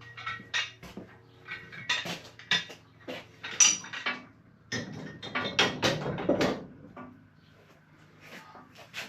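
Repeated metallic clinks and rattles of fencing hardware being handled, in an irregular string that grows busier and louder past the middle.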